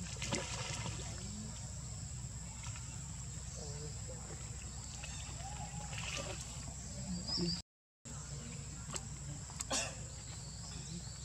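Shallow pool water splashing and sloshing as monkeys wade and a baby monkey swims, with a few sharper splashes near the end. Faint distant voices and a steady hiss sit underneath, and the sound cuts out briefly about two-thirds of the way through.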